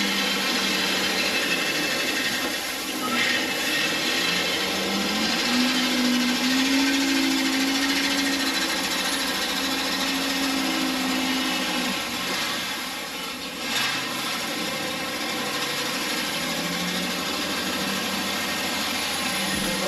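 Gravel spreader truck at work: its conveyor feeds gravel out of the hopper in a steady, dense stream of noise as the truck rolls slowly forward, with the truck's engine note running underneath, rising about five seconds in and dropping back near twelve seconds.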